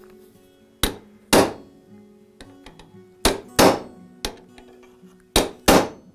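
Hammer striking a steel punch to drive a pin out of a Millers Falls eggbeater drill's drive wheel. Seven sharp metallic strikes, mostly in pairs, each ringing briefly.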